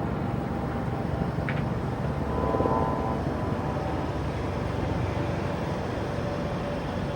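Steady low rumble of distant engine noise, with a brief faint chirp about one and a half seconds in.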